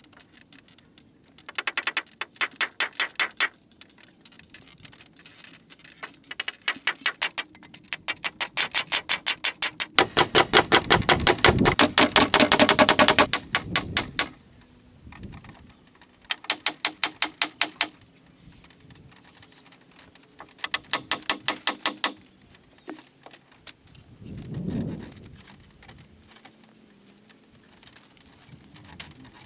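A hammer striking nails into wooden poles in quick, evenly spaced runs of blows, each lasting a second or a few seconds with pauses between. A longer, louder run comes about ten seconds in, and a single dull thump about three quarters of the way through.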